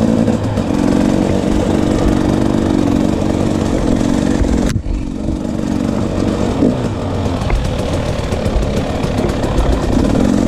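KTM 300 XC-W two-stroke dirt bike engine running while being ridden, its note holding fairly steady, with a brief break in the sound about halfway through.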